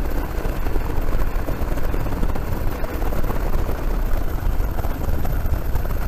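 Military helicopter hovering, its rotor and engine noise loud and steady with a fast flutter, heard at the open cabin door.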